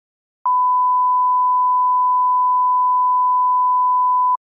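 Broadcast line-up test tone: a single steady 1 kHz beep played with colour bars, lasting about four seconds, switching on and off with a slight click.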